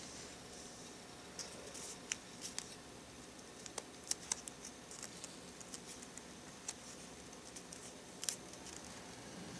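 Sheet of origami paper being folded and creased by hand: faint, irregular crinkles and sharp little clicks as the paper is pressed and flattened.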